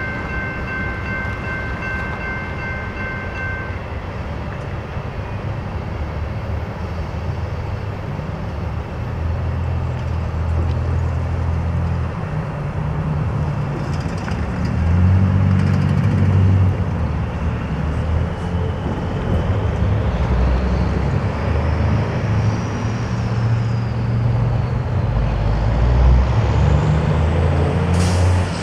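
Loaded crude oil freight train rolling past a grade crossing: a steady low rumble of the cars, with a high wheel squeal that fades out in the first few seconds. Near the end a passing vehicle adds a rising then falling whine.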